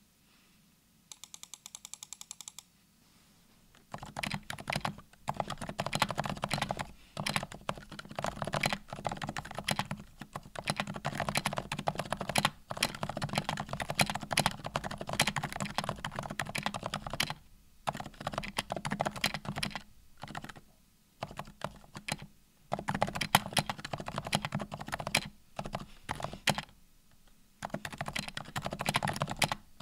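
Typing on a Glorious GMMK Pro custom keyboard with TTC Red Silent V3 silent linear switches, lubed with Krytox 205g0 and fitted with TX films. Fast runs of muted keystrokes begin about four seconds in, with a few short pauses.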